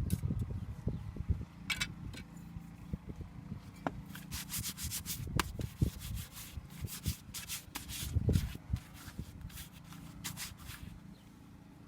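Irregular scraping and rubbing strokes with scattered soft knocks, as from hand work on a hard surface.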